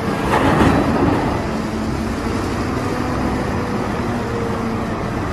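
Caterpillar 992G wheel loader's diesel engine running under load as its raised bucket tips a load of earth into a dump truck. The noise is steady, a little louder during the first second.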